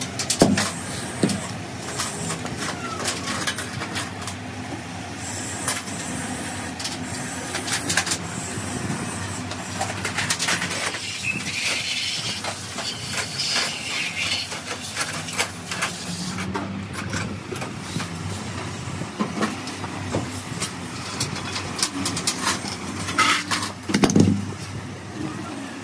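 Scattered clinks and knocks over a steady background noise, with a voice briefly near the end.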